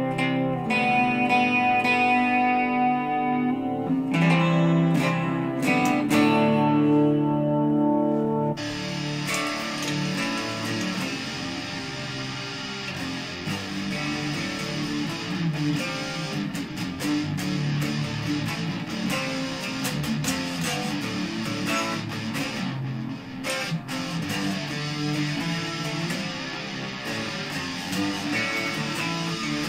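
Gibson Les Paul electric guitar played through a Digitech RP55 multi-effects processor: ringing chords and single notes at first, then about eight seconds in the sound turns denser and fuller, with quicker picking.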